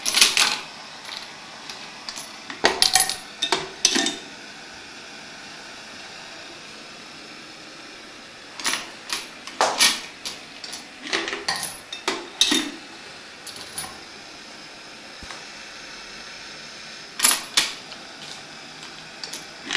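Brass rifle cartridge cases falling out of a homemade rotary-feed annealing machine into a plastic tub, clinking sharply against the cases already in it. The clinks come in several short clusters spread through, over a faint steady hiss.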